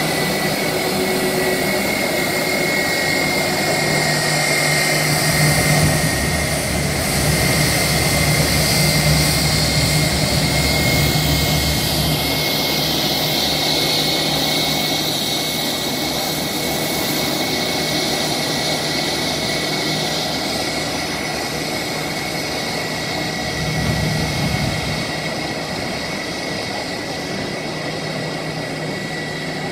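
Twin turbofan jet engines of a Brazilian Air Force Airbus A319 taxiing: a steady high whine over a low jet rumble, swelling somewhat a few seconds in and easing off later.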